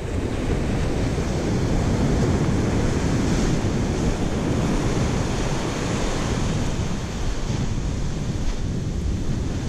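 Surf breaking and foamy wash running up the sand, a steady rushing with wind buffeting the microphone.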